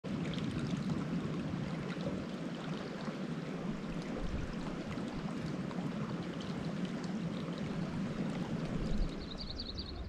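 Small mountain creek babbling steadily, with a brief high chirping near the end.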